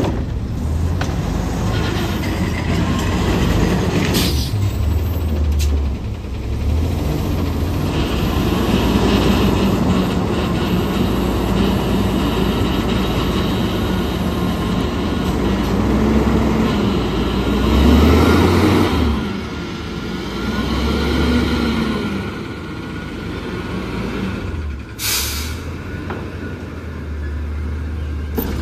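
A front-loading garbage truck with a Curotto-Can runs its diesel engine, revving up and down several times to drive the hydraulic arms as they lift the can over the cab. A couple of short hisses are heard, one early and one near the end.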